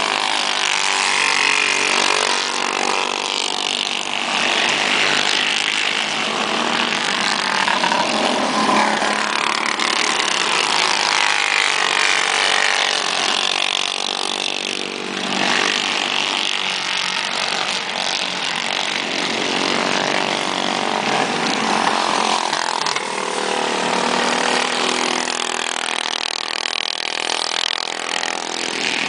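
Several racing go-kart engines running hard together in a high, buzzing drone. Their pitch climbs and falls every few seconds as the karts brake into corners, accelerate out and pass.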